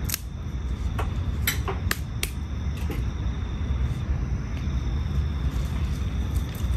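A handful of sharp, irregular knocks and taps as a wooden utensil works a metal pot over an open fire, over a steady low rumble.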